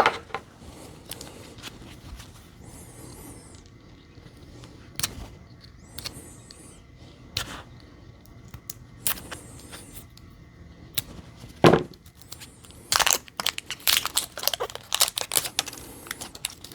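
Plastic shrink wrap being picked at and peeled off an 18650 lithium-ion cell: scattered light clicks and scratches, then a denser run of crackling and scraping near the end.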